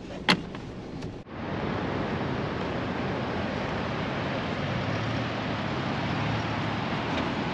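Steady rushing of wind and breaking ocean surf, starting abruptly just over a second in.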